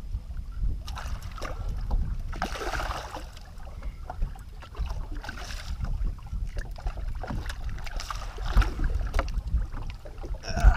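Water splashing at the boat's side in several bursts as a hooked smallmouth bass is brought in to be landed, over a steady rumble of wind on the microphone.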